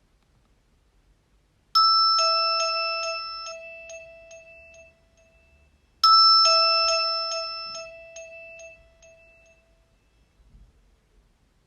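Nokia 225 mobile phone playing a built-in ding-dong chime tone, heard twice about four seconds apart. Each chime is a high note followed by a lower one, both fading out slowly.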